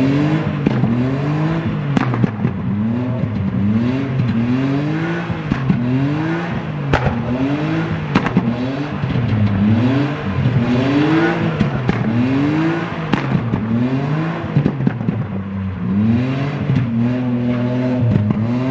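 A drifting car's engine revved hard over and over, its pitch rising and dropping back about once a second, with a few sharp cracks.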